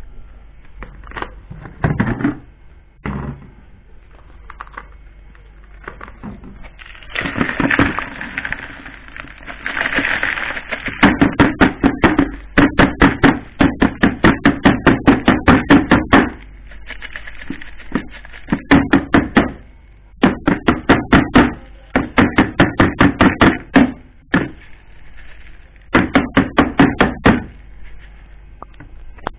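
A plastic spinner basket is shaken with a rustle and then rapped against a plastic bowl in quick runs of knocks, about eight a second, in several bursts, to knock out the spin-dried kremesan crumbs.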